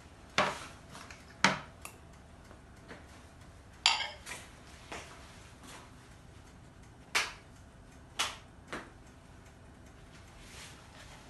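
Ceramic plates and a serving platter being set down on a table: about eight separate sharp clinks spread out over several seconds, one about four seconds in ringing on briefly.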